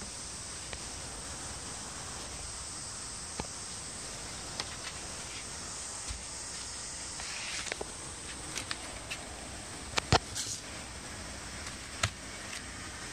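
Steady background hiss with scattered light clicks and knocks of things being handled; the loudest are a pair of knocks a little after ten seconds and a single knock at about twelve seconds.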